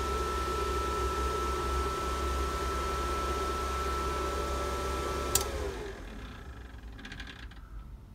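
Cooling fan of an ASIC miner's power supply running steadily with a held whine. About five seconds in, a sharp click as the power is cut, and the fan winds down, its pitch falling and the noise fading away.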